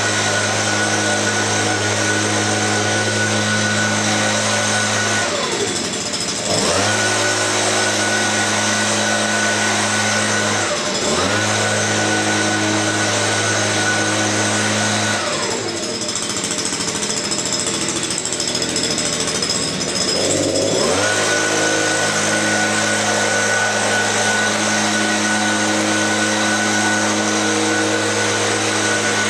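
Engine-driven leaf blower running steadily at high speed. Its pitch drops and climbs back three times as the throttle is eased off and opened again: about five seconds in, briefly about eleven seconds in, and for several seconds from about fifteen seconds in.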